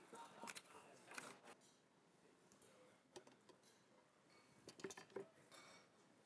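Faint, scattered clinks and scrapes of kitchen utensils against stainless-steel mixing bowls and a blender jar, the loudest few about five seconds in.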